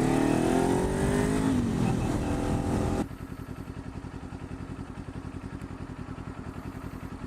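Motorcycle engine pulling up through the revs and then easing off, with wind rushing past. About three seconds in, the rush cuts off suddenly and the engine settles to an even, pulsing idle.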